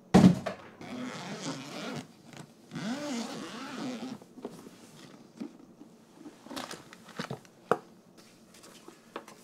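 Packaging of a headset set being opened by hand: a sharp knock at the start, two stretches of rustling and tearing in the first four seconds, then a few light clicks and taps.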